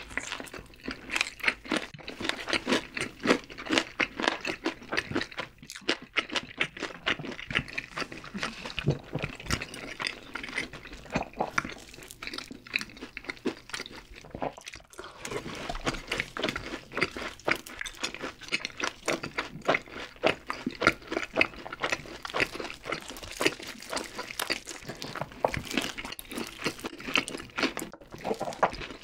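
Close-miked eating of fried chicken and cheese balls: steady, irregular crunching and chewing, a dense run of small crackles and bites throughout.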